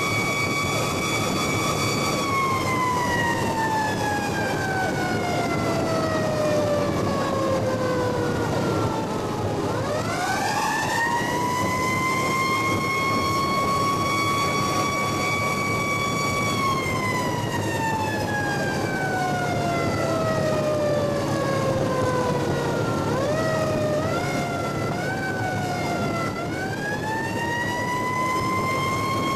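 Fire truck's mechanical siren heard from inside the cab: wound up and held at a steady high pitch, then left to coast slowly down in pitch, wound quickly back up about ten seconds in, coasting down again, given a few short blips near the end and wound back up. Engine and road noise run underneath.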